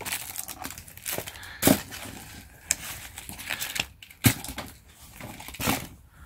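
Small boxed items and packaged goods tossed one by one into an open cardboard box: about four sharp knocks as they land, with packaging rustling between them.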